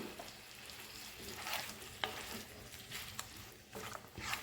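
Fried chicken pieces being stirred into a pan of sizzling chili garlic sauce, a spoon scraping and tapping against the pan now and then, faint overall.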